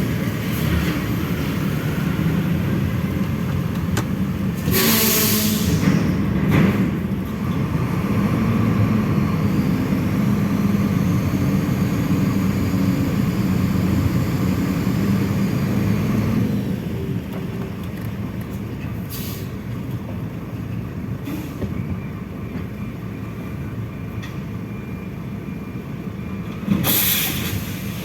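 Heavy diesel semi-truck loaded with gravel, its engine labouring on a climb for about the first sixteen seconds and then running more quietly. Several short hisses of air brakes cut through, the loudest about five seconds in and near the end.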